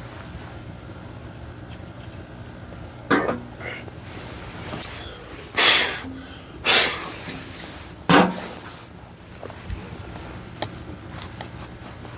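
Pellet stove fire burning, with a few faint ticks and crackles over a steady low hum. Several short, loud rushing noises break in between about three and eight seconds in.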